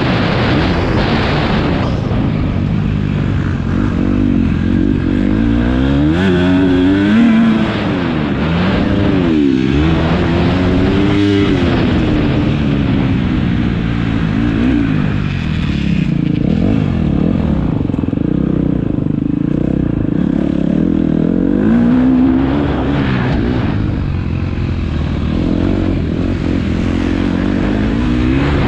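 Motocross bikes running on the track, their engines revving up and down over and over. Several engines are heard at once, their pitches rising and falling across each other.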